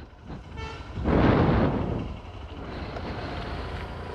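Road traffic going by: a brief vehicle horn toot about half a second in, then a vehicle passing close with a loud rush of noise that fades, over a steady low traffic rumble.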